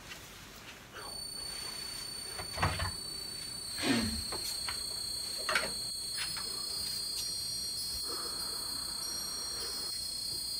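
Thin, high sustained electronic tones entering one after another and building into an eerie drone. Several dull thuds of movement are heard at about 3, 4, 5.5 and 6 seconds.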